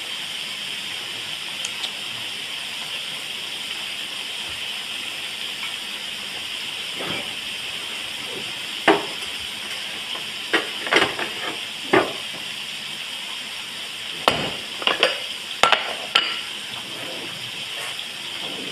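Ground meat sizzling in a stainless steel wok: a steady high hiss, with scattered sharp pops and clicks in the second half.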